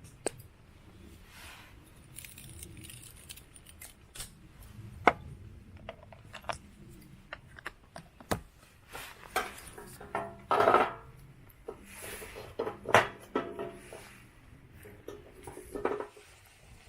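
Scattered clicks, clinks and clatter of tableware being handled, some with a short metallic ring, and a brief rustling burst midway.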